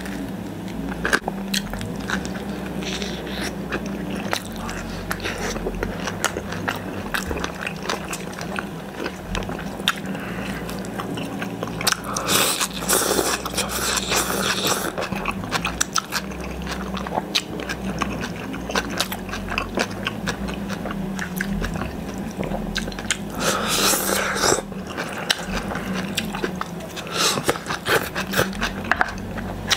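Close-miked eating: biting and chewing a crisp, slightly overheated pizza slice, then chewing food picked by hand from a plastic tub, with many wet mouth clicks and two louder crunchy spells. A steady low hum runs underneath.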